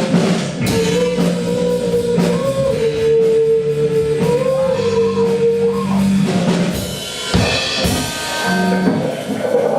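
A band playing with a drum kit: a long held melody note that bends slightly carries over the drums for the first half, then drum strokes and cymbals lead near the end.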